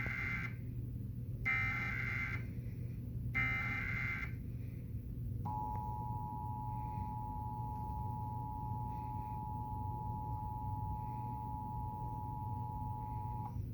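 Emergency Alert System SAME header: short digital data bursts about a second long and a second apart, the first already under way, two more following. After about a second's pause comes the EAS two-tone attention signal, a steady dual-tone beep lasting about eight seconds that cuts off near the end. A steady low hum runs underneath.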